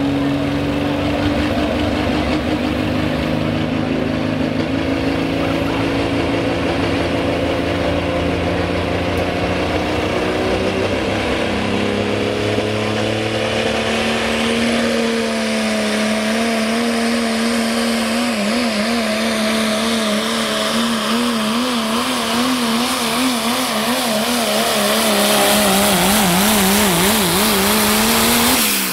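Turbocharged Ford Super Duty diesel pickup engine, running steadily at first, then under full throttle pulling a sled. In the last half its pitch wavers up and down rapidly, and it grows louder near the end.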